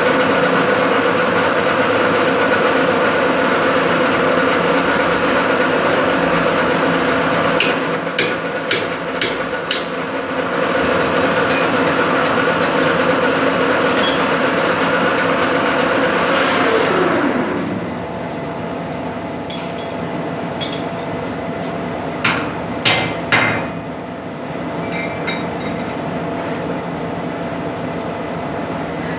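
A metalworking machine tool running steadily with a held hum, then spinning down with a falling pitch about two-thirds through. Sharp metal clanks and clinks come in a cluster before the spin-down and again a few seconds after it.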